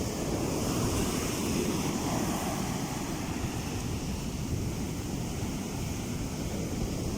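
Rough-sea surf washing onto the beach in a steady roar of noise, with wind buffeting the microphone.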